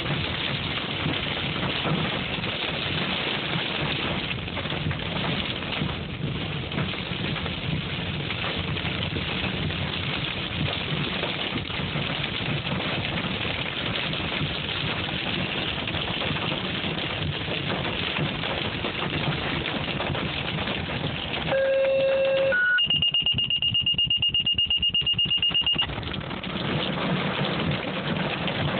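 Hail and heavy rain pelting a car's roof and windshield, heard from inside the cabin as a dense, steady din. Near the end a short electronic tone sounds, then a loud, high-pitched, rapidly pulsing beep lasts about three seconds and drowns out the storm before cutting off.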